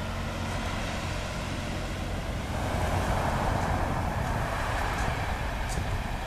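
A small fishing boat's engine running as the boat drives ashore onto a shingle beach, with a louder rush of water and shingle under the hull from about two and a half seconds in.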